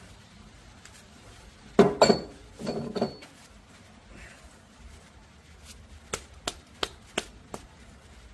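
Metal parts and tools clanking and ringing, twice loudly, during reassembly of a tractor's PTO shaft housing, then five quick light taps about three a second.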